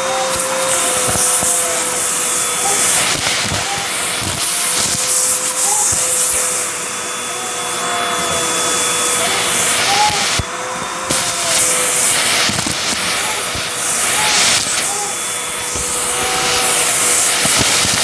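Hoover vacuum cleaner running with a steady motor whine and a rushing hiss of suction as its hose tool sucks up dirt and small debris from carpet, with scattered clicks of pieces being pulled into the tool. The hiss briefly drops about halfway through.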